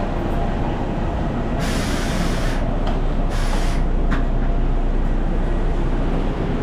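Steady low rumble inside the cabin of an Airbus A320 on the ground after landing, with two short bursts of hiss about two and three and a half seconds in.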